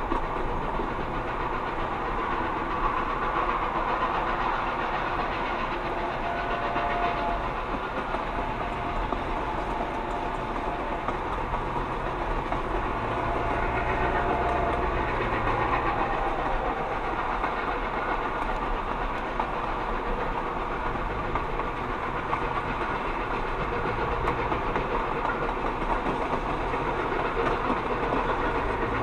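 Steady rumble and road noise of a car driving at speed, heard from inside the cabin, alongside a steam-hauled passenger train running on the adjacent track.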